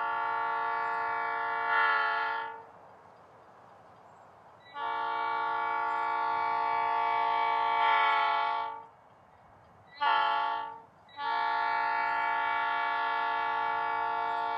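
GP35 diesel locomotive's multi-note air horn sounding the grade-crossing signal: two long blasts, one short, then a final long blast still sounding at the end.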